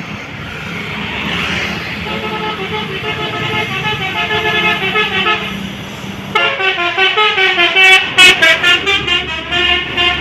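Bus "telolet" multi-tone horn playing a rapid tune of stepped, warbling notes over the rumble of the bus. The horn comes in about two and a half seconds in and turns suddenly louder about six seconds in.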